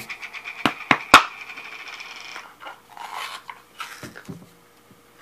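Large plastic mayonnaise jar being handled and its lid twisted open. There are a few sharp clicks, the loudest a little over a second in, over a squeaky plastic scrape that stops after about two and a half seconds, then softer rubbing and handling of the jar.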